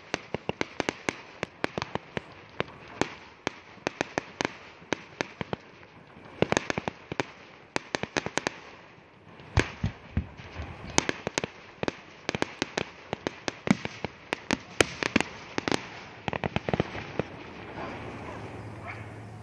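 Aerial fireworks bursting: dense runs of crackling pops mixed with louder single bangs, easing off briefly about nine seconds in before picking up again.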